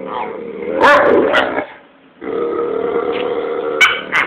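Two dogs play-fighting: drawn-out growls, broken by a short pause about two seconds in, and short sharp barks about a second in and again near the end.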